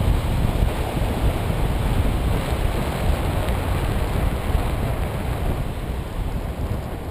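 Steady rush of wind on the microphone of a paraglider in flight, easing a little near the end, with surf breaking along the beach below.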